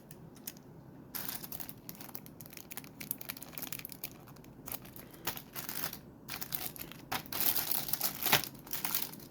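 Plastic lure packaging crinkling and rustling as it is handled, in irregular crackles that start about a second in and grow busier and louder near the end.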